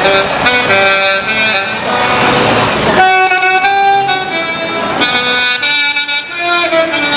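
Loud horn blasts at changing pitches, following one another quickly like a tune played on horns, with a noisy rushing stretch about two to three seconds in.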